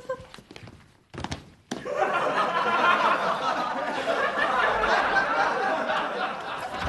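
A crowd laughing, a sitcom audience laugh track: it swells up after a short lull about two seconds in and keeps going.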